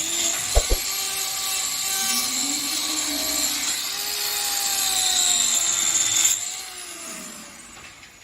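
Hand-held power tool grinding or cutting hard material, its motor pitch wavering under load, with two sharp knocks about half a second in; it stops suddenly about six seconds in.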